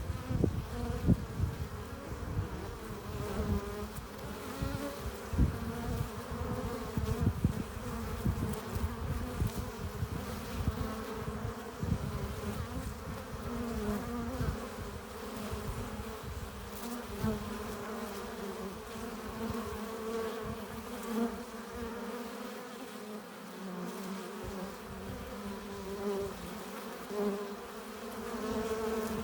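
Many honeybees buzzing at a hive entrance as foragers fly in and out, a dense steady hum of overlapping wingbeat tones. Irregular low thuds come through during the first half.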